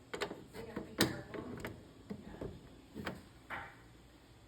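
Irregular clicks and knocks of hard parts being handled during appliance repair work, the sharpest about a second in, then softer knocks and rustles, quieter near the end.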